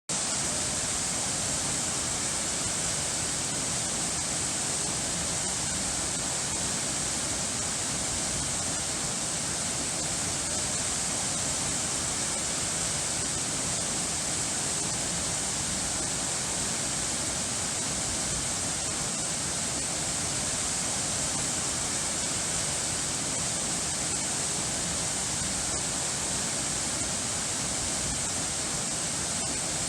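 Running water rushing steadily and evenly, a continuous hiss-like wash with no pauses or changes.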